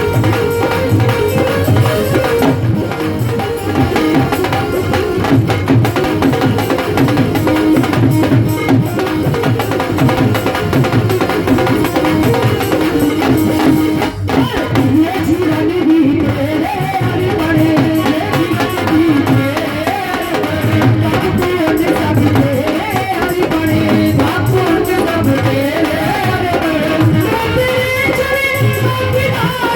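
Instrumental passage of a Hindi devotional bhajan: hand drums keep a steady rhythm under a wavering melody line.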